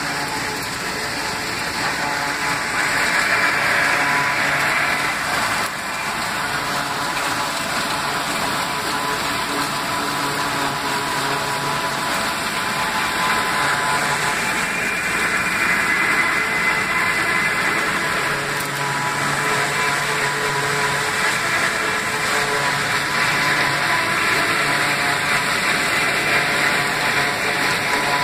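John Deere 2755 tractor's diesel engine running steadily under load, together with the PTO-driven forage harvester it pulls chopping dry stalks: a dense, continuous mechanical noise with a steady engine hum.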